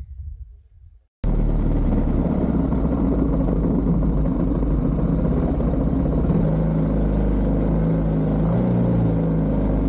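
Motorcycle engine running steadily while riding, its pitch shifting a little in the second half. It cuts in abruptly about a second in, after a short faint stretch.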